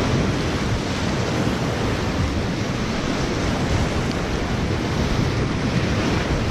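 Whitewater rapids rushing steadily and loudly around a kayak, with wind buffeting the action camera's microphone.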